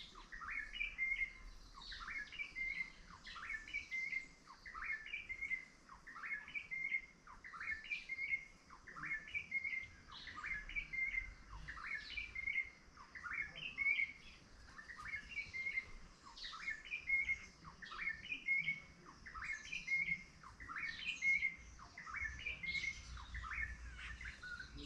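Small birds chirping, with the same short phrase of quick downward chirps repeated steadily about every second and a half, and fainter higher calls in between.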